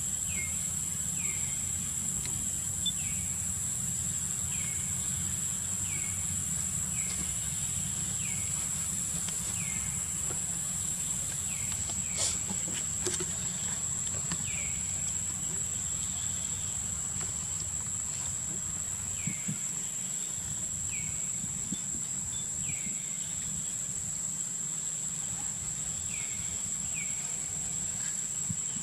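Steady high insect drone, with a short falling chirp repeating about once a second that pauses for a few seconds around the middle, over a low steady rumble.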